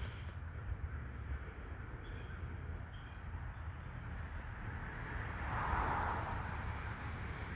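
Outdoor ambience: a steady low rumble with scattered faint, short high bird chirps, and a rushing noise that swells and fades between about five and six and a half seconds in.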